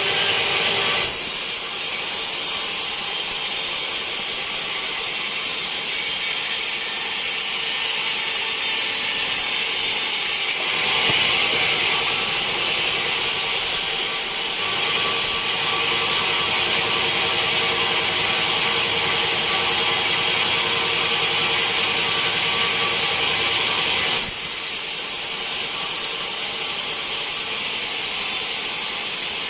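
Band sawmill cutting a teak log: a loud, steady hiss of the blade through the wood over the running machine. The sound changes in texture about a second in, again around ten seconds in, and once more about twenty-four seconds in.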